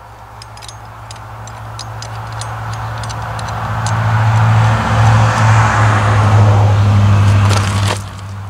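A motor vehicle's engine hum and road noise swelling over several seconds, loudest in the second half, then dropping away sharply near the end. Light metallic clinks of a steel safety chain and hook being handled sound over it.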